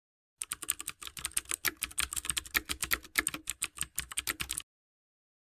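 Typing sound effect: rapid, irregular keyboard clicks, about ten a second, for text being typed out on screen. It starts about half a second in and stops sharply about a second before the end.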